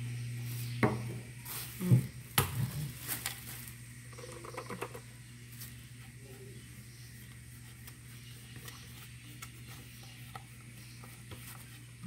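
Plastic handling noises as a vacuum cleaner's dust cup and filter are emptied over a plastic bag: several sharp knocks and rustles in the first three seconds or so, then fainter scattered handling. A steady low hum runs underneath.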